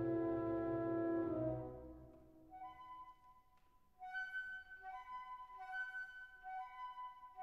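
Background music: a held chord fades away over the first two seconds, then a soft melody of long sustained notes starts up.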